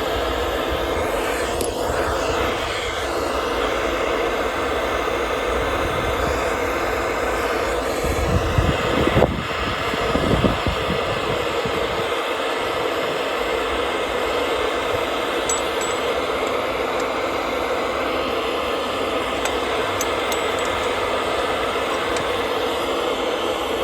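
Steady mechanical running noise, with a few heavy knocks about eight to eleven seconds in.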